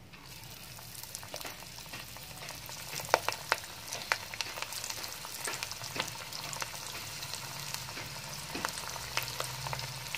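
Mussel vadas deep-frying in hot oil: a steady sizzle with many scattered sharp pops and crackles, picking up in the first second as the batter goes into the oil.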